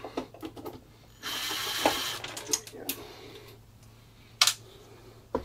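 Screwdriver work on a screw in a UPS's metal case: scattered clicks, then a rasping scrape from about a second in that lasts about a second and a half, and a sharp click near the end.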